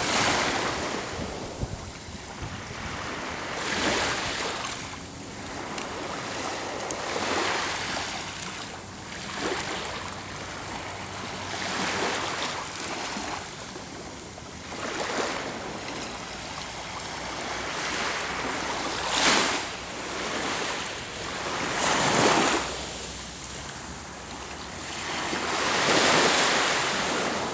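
Small waves breaking and washing up a sandy shore, a fresh surge every three to four seconds, with wind rumbling on the microphone.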